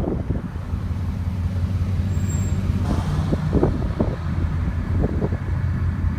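A vehicle's engine and road noise while driving: a steady low drone with a few short, uneven noises on top.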